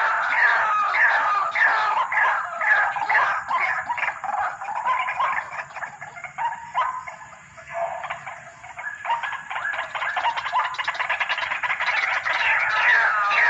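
White-breasted waterhen (ruak-ruak) calling: a long run of repeated harsh notes, each sliding down in pitch, about two a second. The calling weakens for a few seconds past the middle, then picks up loudly again.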